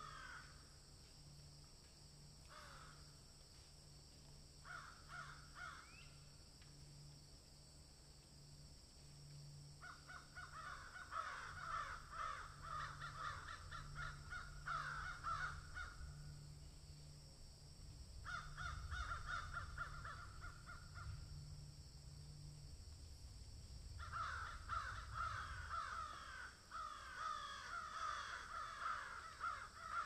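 Faint, harsh bird calls in bouts of a few seconds, with short snatches near the start and longer runs of rapid repeated calls through the second half.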